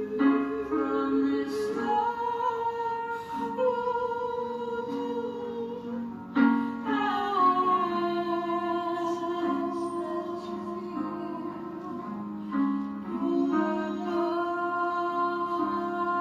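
Slow music: a woman's voice holds long sung notes, wavering slightly, over a sustained accompaniment that changes chord a few times.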